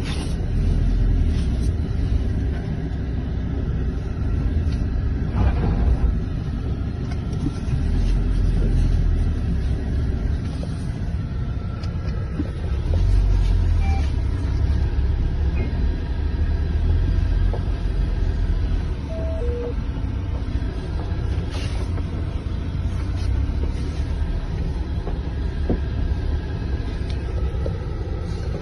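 Steady low rumble of a motor vehicle driving, engine and road noise, with a few light knocks.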